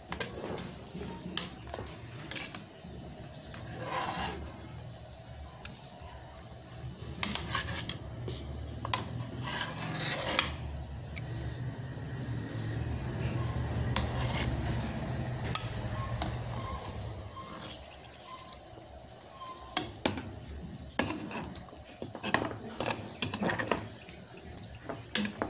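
Metal ladle clinking and scraping against a stainless cooking pot while skimming scum off boiling beef shank broth, in scattered sharp clinks. A low rumble swells for several seconds midway.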